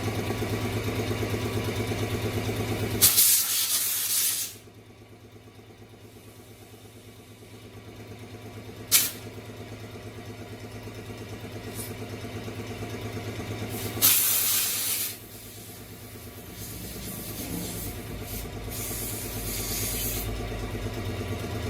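Two sharp bursts of air hissing, each about a second and a half long, over a steady machine hum, with a single sharp click between them.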